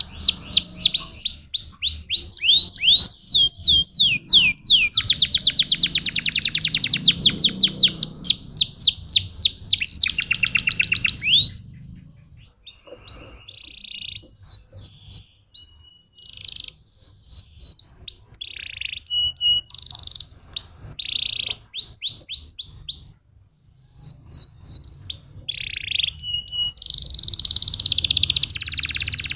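A domestic canary singing: long trills of fast repeated down-slurred whistled notes, several a second. After about 11 seconds the song turns quieter and more varied, with short buzzy phrases and a brief pause, then loud rapid trills return near the end.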